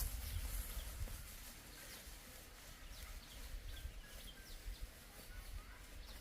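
Small birds chirping, with many short, high calls scattered through, over a low rumble.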